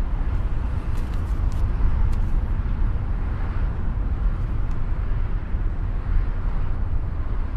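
Steady low rumble of a moving car: engine and road noise.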